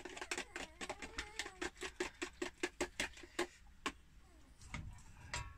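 Pancake batter being beaten by hand in a plastic jug, the utensil clicking against the jug's side about six times a second, then slowing to a few last taps after about four seconds.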